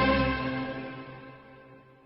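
Instrumental accompaniment of a Cantonese opera song, its held notes dying away to near silence at the end of a phrase.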